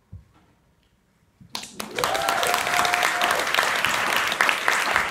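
An audience suddenly bursts into applause about a second and a half in, dense clapping with a held whoop rising above it.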